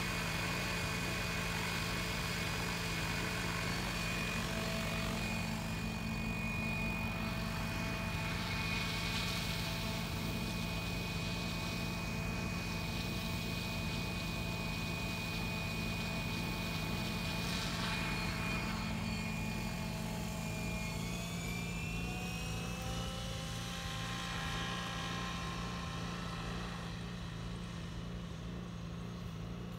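F3C-class radio-controlled helicopter in flight: a steady low rotor hum with a high motor-and-rotor whine over it. The whine rises in pitch about two-thirds of the way through, and the sound drops slightly near the end as the helicopter flies farther off.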